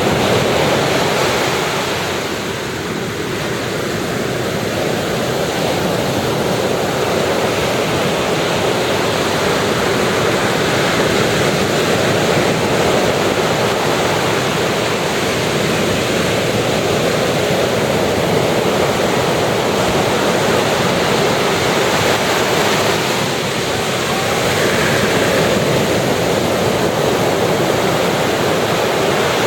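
Ocean surf breaking and washing ashore in a continuous loud wash, easing briefly about three seconds in and swelling again near the end.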